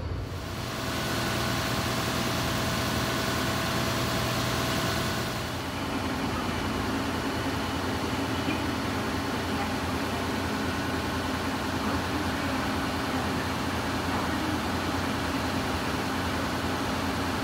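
Steady low drone of idling vehicle engines and street traffic, with faint steady tones that stop about five seconds in.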